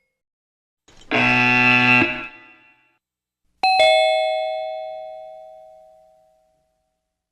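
Doorbell sound effect: an electric buzz lasting about a second, then a two-note ding-dong chime, high then lower, struck in quick succession and ringing out as it fades over nearly three seconds.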